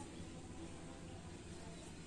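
Faint steady background noise with a low hum; no distinct calls.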